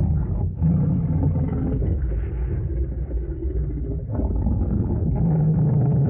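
Slowed-down zoo animal chattering sound effect: the animal calls are stretched into low, drawn-out pitched calls over a continuous deep rumble.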